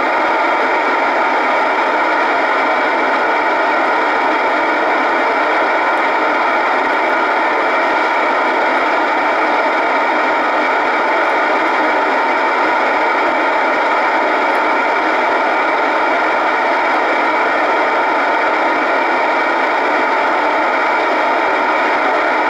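Steady FM receiver hiss from a communications receiver tuned to the SO-50 satellite's 436.79 MHz downlink, squelch open, with no transmission coming through. The noise is even and unchanging throughout.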